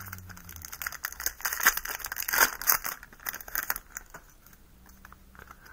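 Foil wrapper of a Yu-Gi-Oh booster pack crinkling and tearing as the pack is opened and the cards are slid out, a dense crackle that dies down about four seconds in.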